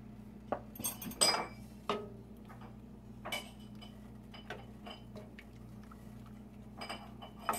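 Wooden spatula stirring corn flour into cold water in a stainless-steel pot, knocking and scraping against the metal with irregular ringing clinks, the loudest about a second in.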